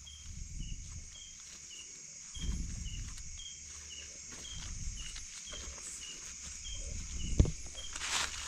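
Gloved hands rustling in dry leaf litter and handling a freshly picked wild mushroom, with one sharp knock about seven seconds in. Behind it run a steady high whine and a short chirp repeating about twice a second.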